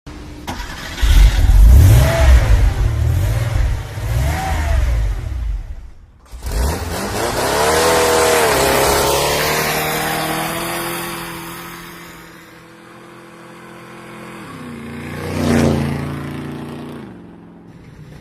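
A vehicle engine sound effect. It revs with wavering pitch for about six seconds, breaks off briefly, then climbs in pitch again and passes close, loudest near the end, with its pitch falling as it goes.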